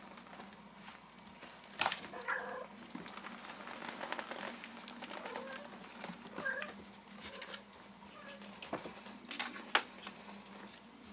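Kittens mewing in short, faint high calls, a handful of them scattered through the middle, with two sharp knocks (one about two seconds in and a louder one near the end) and light ticking in between.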